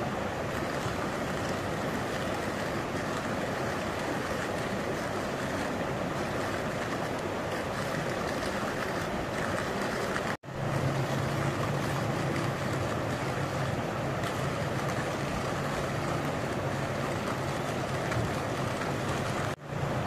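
Steady rushing of a flowing shallow river. The sound breaks off for an instant about halfway through and again near the end.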